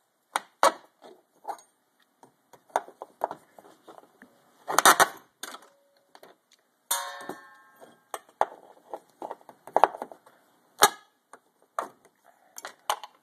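Staple Shark hand staple puller at work among bundled cables: irregular metallic clicks, taps and scrapes as it prises at staples. About seven seconds in there is a short metallic ring that dies away.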